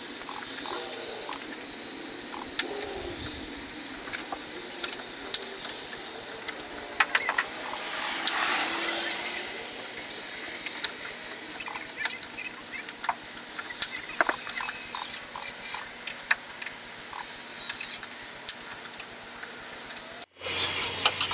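Scattered small clicks, taps and rattles of hands working on the underside of a car's raised trunk lid, over a steady outdoor background hiss, with a brief rushing swell about eight seconds in.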